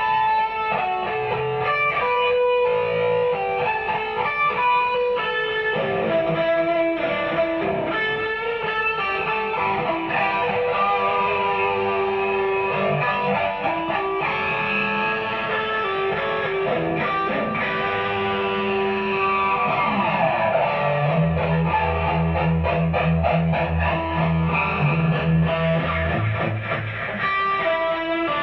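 Electric guitar, a Mexican-made Fender Stratocaster through a Marshall DSL40C valve combo amp, playing melodic single-note lines and quick runs. A deeper low part comes in for several seconds about two-thirds of the way through.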